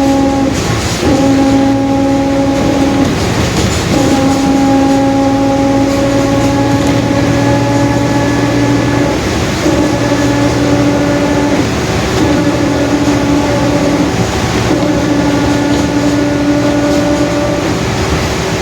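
Mercedes-Benz OF-1721 bus driveline under way, with a loud steady whine from a growling differential over the diesel's running noise. The whine breaks off briefly about a second in and again around three seconds, then carries on with small shifts in pitch.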